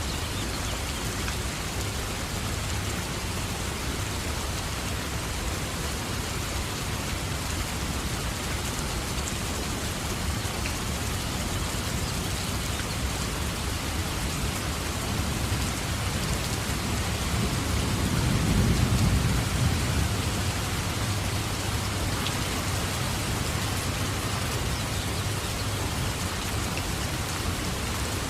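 Steady rain, with a low rumble of thunder swelling to a peak about two-thirds of the way through and then fading back.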